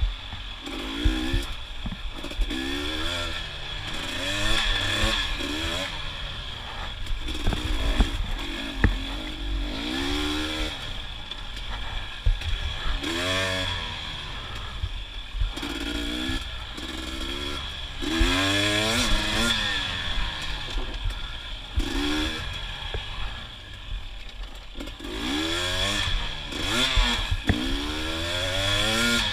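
A KTM 250 XC TPI fuel-injected two-stroke single revving up and dropping back again and again, in short bursts of throttle every second or two, with scattered knocks and clatter.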